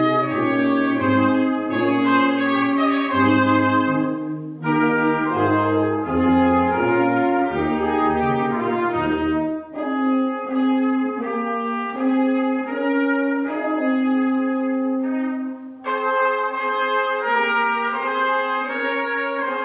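Brass ensemble playing slow, sustained chords in phrases of about five seconds each. The low bass parts drop out about halfway through, leaving the upper voices.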